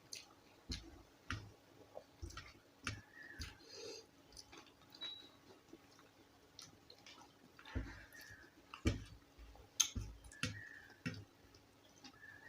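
A person eating soft rice gruel and mashed vegetables close to the microphone: irregular wet clicks and chewing sounds, a few of them sharper, more than a second apart.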